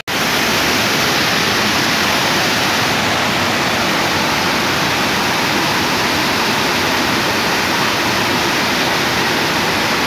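Devkund waterfall pouring over rocks into its pool: a steady, loud rush of falling water.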